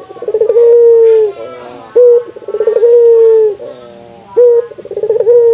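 Barbary dove (burung puter) cooing: three phrases about two seconds apart, each a short note, a quick rolling stutter, then a long drawn-out coo that dips slightly at its end.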